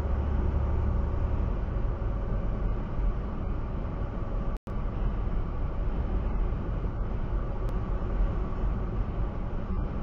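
Steady road and engine noise inside a vehicle cruising at about 65 mph, dropping out for an instant about halfway through.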